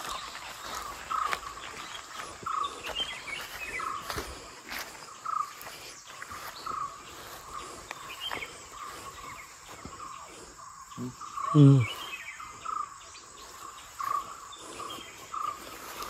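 Forest animal calls: one short, mid-pitched note repeated steadily about every two-thirds of a second, the kind of continuous call a forest bird or insect keeps up. About eleven and a half seconds in, a brief low voice-like call is the loudest sound.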